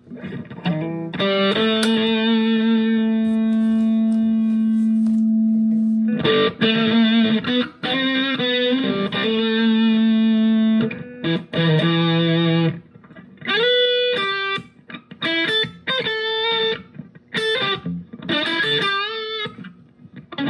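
Electric guitar played through a fuzz preset on a Sonicake Matribox II Pro multi-effects processor. Long sustained fuzzed notes ring out in the first half, then shorter, choppier notes with string bends follow in the second half.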